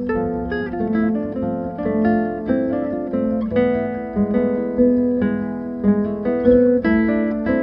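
Background music: an acoustic guitar picked in a steady run of plucked notes.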